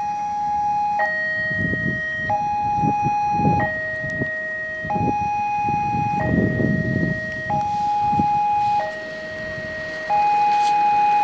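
Railway level-crossing warning alarm sounding a two-tone hi-lo signal, each tone held for about a second and a quarter, the sign that the crossing is closed for an approaching train. An irregular low rumble runs beneath it through the middle, and the alarm is louder near the end.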